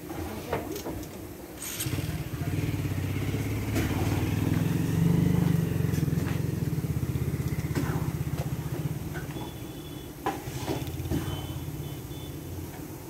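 An engine running nearby: a low, fast-pulsing rumble that comes up about two seconds in, swells, and dies down again after several seconds, with scattered clicks and knocks.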